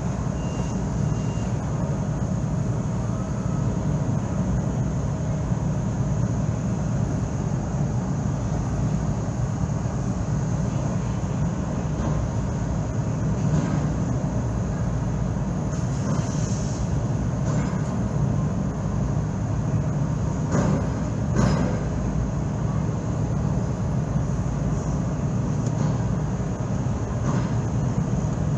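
Steady low engine rumble heard from inside a car waiting on a ferry's vehicle deck, with a few short knocks, two of them close together about three-quarters of the way through.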